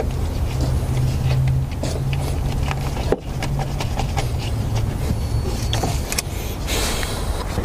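An engine running steadily at idle, with scattered light clicks and scrapes of hand-tool work over it.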